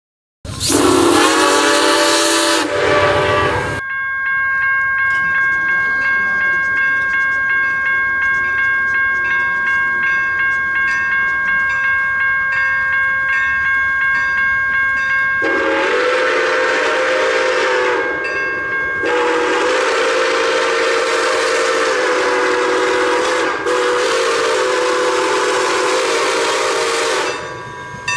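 Steam whistle of Milwaukee Road 261, a 4-8-4 steam locomotive: one blast in the first few seconds, then a quieter steady sound with an even pulse of about two beats a second, then three long whistle blasts in the second half as the train approaches.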